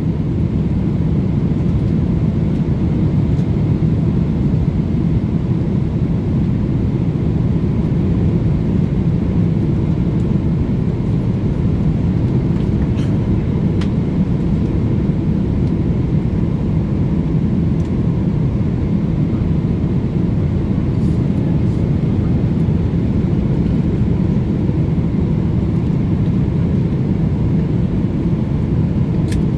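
Cabin noise of a Boeing airliner at cruise: a steady, low drone of engines and rushing air.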